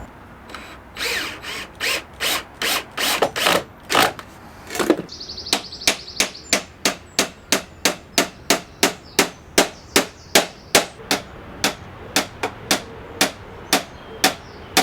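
Claw hammer driving nails into a timber batten and door frame: a few uneven blows at first, then a steady run of about three strikes a second.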